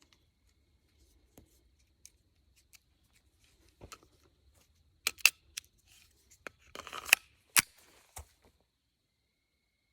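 Sharp metallic clicks and clacks of a Sig P322 .22 pistol being handled to clear a feeding malfunction (jam). A few faint clicks come first, then a quick run of louder ones from about five to eight seconds in.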